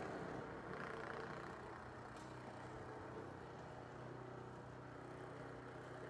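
Walk-behind snow blower running steadily as it clears a snowy walkway, a constant engine hum.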